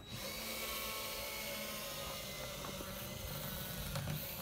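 A small motor running steadily, a whir over an even hiss, starting suddenly.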